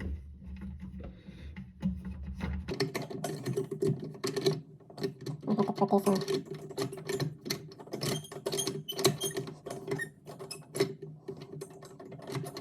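Quick clicks, taps and rattles of faucet mounting hardware being handled and tightened by hand, getting busier about three seconds in.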